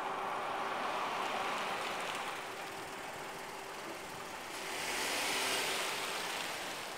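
A 2013 Chevrolet Traverse's V6 engine and tyres as the SUV drives slowly up and passes close by, its hiss growing louder about five seconds in as it goes past.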